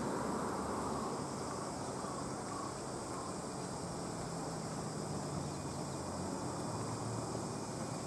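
Steady outdoor ambience of insects chirring in the grass, with a faint low hum that grows a little stronger in the middle.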